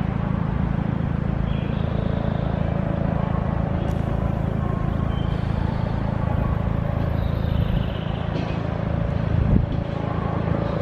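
Electric train running through the station, a steady low rumble with faint high-pitched whines coming and going.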